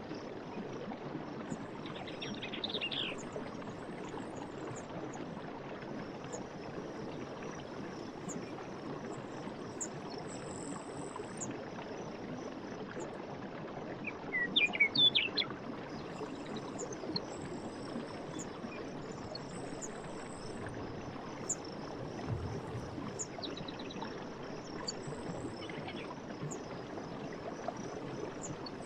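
Night forest ambience: a steady hiss of background noise under faint, high, repeated insect chirps. Birds call briefly near the start and loudest about halfway through, with a quick burst of chirps.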